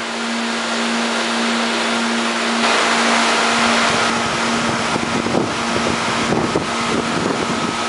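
Steady mechanical drone of the lobster warehouse's pumps, loud, with a constant hum under a wash of noise; the noise swells louder for about a second around three seconds in.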